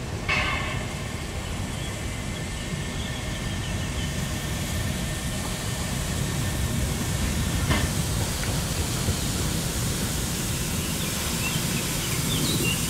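Saxon narrow-gauge steam locomotive, a DR class 99.77 2-10-2T tank engine, drifting slowly toward the listener with a steady low rumble of engine and wheels. There is a brief hiss about half a second in.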